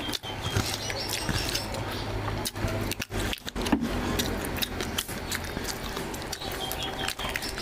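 Close-miked wet eating sounds: lips smacking and chewing, with fingers squelching through curry-soaked meat and rice. There are many short sharp clicks and crackles throughout.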